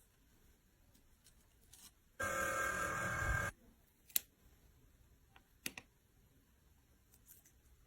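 A loud electronic ringing tone that lasts just over a second, set among scattered faint clicks and taps.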